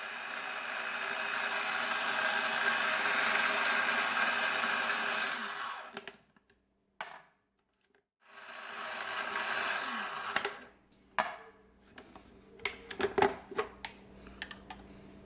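Electric food processor running, its blade chopping diced onions and jalapeños: one long run of about five seconds, a pause, then a shorter run of about two seconds. After that come scattered plastic clicks and knocks.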